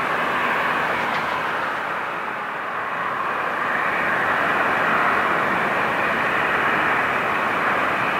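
Airbus A321neo's jet engines running as it rolls down the runway for takeoff: a steady rushing sound that dips slightly about two seconds in and then builds again.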